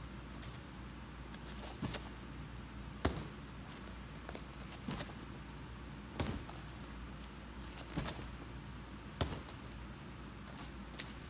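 Bare hands and feet thudding onto a foam block and padded floor mat during repeated handstand kick-ups and landings: about six short dull thuds, a second or two apart, over a steady low hum.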